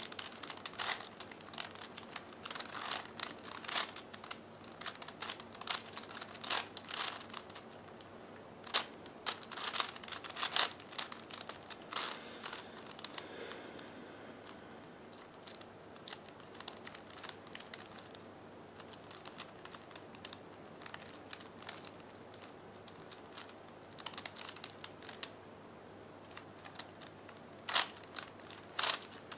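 Plastic 5x5x5 V-Cube puzzle being turned by hand: bursts of quick clicking as its layers snap round, thick for the first dozen seconds, sparser through the middle, with a quick flurry of turns near the end.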